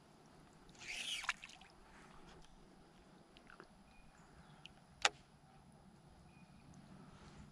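Quiet outdoor river surroundings with a few faint, short bird chirps. There is a brief swish about a second in and a single sharp click about five seconds in.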